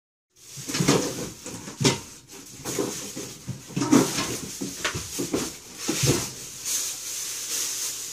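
Handling noise from a water heater being unwrapped and set down: a plastic bag crackling and rustling, with several sharp knocks of the unit's metal case against the counter and cardboard.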